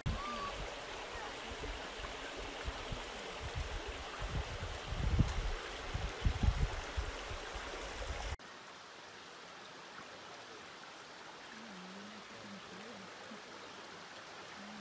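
Small rocky stream trickling over stones: a steady hiss of running water. Low rumbling thumps on the microphone come about four to seven seconds in. After a cut about eight seconds in, the water sound is quieter.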